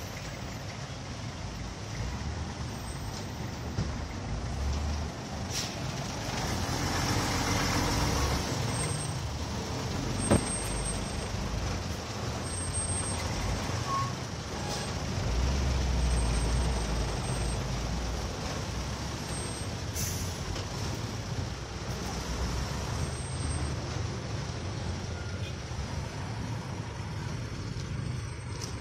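Slow road traffic: minibus and truck engines idling and crawling, a steady rumble. A hiss swells partway through, and a single sharp knock comes about ten seconds in.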